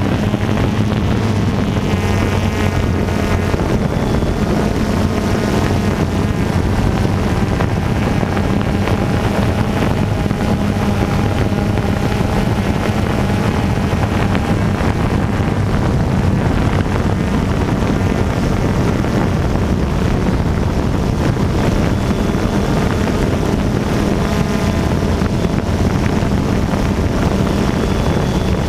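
DJI Phantom 2 quadcopter's four motors and propellers running in flight, heard up close from the camera it carries: a loud, steady buzz of several overlapping tones that waver slightly in pitch as the motors adjust speed.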